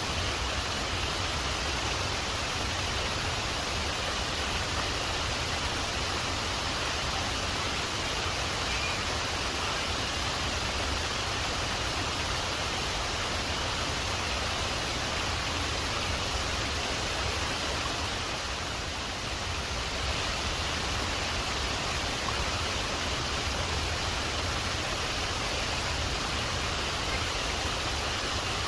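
Waterfall rushing steadily, an even hiss of falling water, easing slightly for a moment about two-thirds of the way through.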